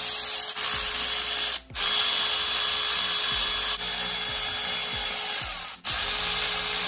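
Cordless electric ratchet with a 9/16 socket spinning bolts out of the shift cover of a Borg Warner T18 four-speed transmission. It runs steadily in three stretches, with short stops just under two seconds in and about six seconds in.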